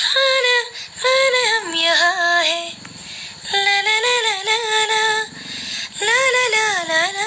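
A woman singing a melody in several sung phrases with short breaths between them. The notes glide and waver in an ornamented style.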